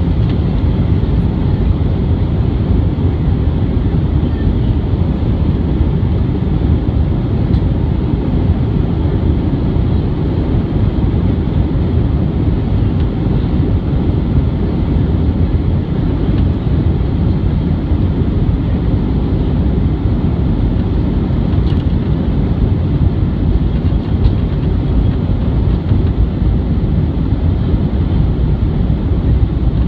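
Airbus A320 jet engines running steadily at low power while the airliner taxis, heard inside the cabin as an even, deep rumble and rush.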